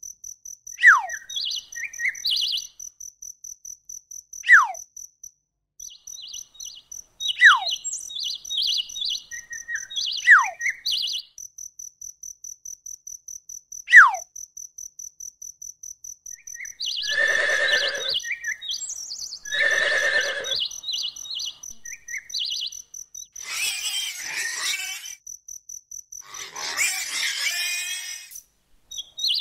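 Countryside ambience: a steady, fast-pulsing insect chirp like crickets runs underneath birds calling. The birds give several sharp falling whistles and clusters of short chirps, then two louder calls midway and rougher, noisier calls near the end.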